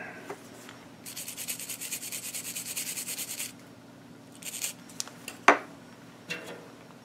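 Rapid rubbing strokes, about eight a second, for two and a half seconds, then a few light clicks and one sharp tap about five and a half seconds in.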